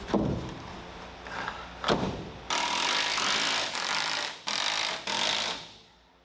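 Very old power drill boring for anchor bolts through a wooden sill plate, run in two bursts of a few seconds each that start and stop abruptly. Two sharp knocks in the first two seconds.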